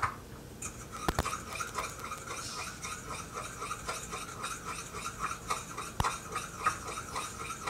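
A fork whisking oil-and-balsamic-vinegar salad dressing in a small bowl, a quick rhythmic clatter of the fork against the dish as the dressing emulsifies. There are a few sharper knocks about a second in and about six seconds in.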